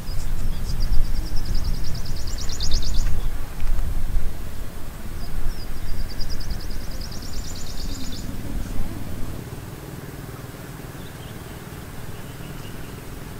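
Outdoor river ambience with a loud low rumble, which drops away about nine seconds in. Over it, a high, rapid trilling call comes twice, each lasting about two and a half seconds.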